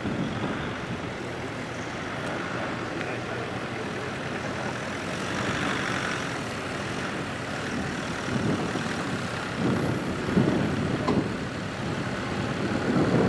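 Four-wheel drive's engine pulling the vehicle up a rutted sandy track at low speed, getting louder as it climbs closer, with surges of throttle from about eight seconds in.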